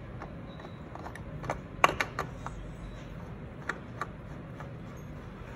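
Light, irregular clicks and taps as a new spin-on oil filter is handled and threaded onto a motorcycle engine by hand; the sharpest click comes a little under two seconds in.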